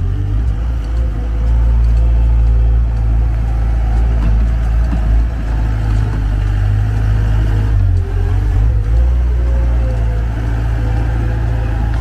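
Komatsu wheel loader's diesel engine running close by as the machine drives across the yard, a deep steady drone that grows louder about a second in.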